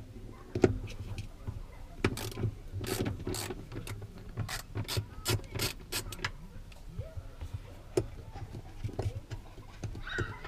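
Hand ratchet and socket clicking in quick, irregular runs as a rear-seat mounting bolt is undone, with a single sharper metallic knock near the end.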